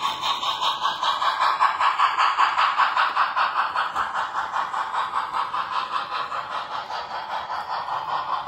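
HO-scale Union Pacific Big Boy model steam locomotive and its freight cars running past on the track, making a rapid, even pulsing of about five beats a second. It is loudest as the engine goes by and eases as the boxcars follow.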